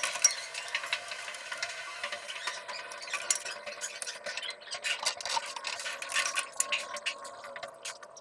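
Irregular scraping and clicking of hand tools and hands working on plastic water pipes and fittings, over a faint steady hiss.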